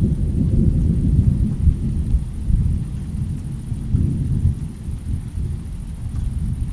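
Low, rolling rumble of a rainstorm, swelling in the first couple of seconds and again about four seconds in, with only a faint high hiss above it.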